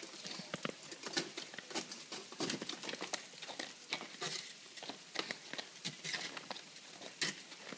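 Irregular patter of small sharp clicks and ticks, several a second.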